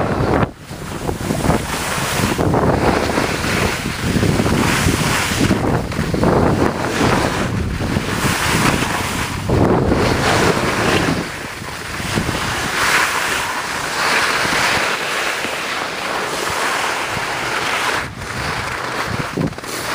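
Loud rushing wind buffeting a handheld camera's microphone during a downhill ski run, swelling and easing, with brief dips twice.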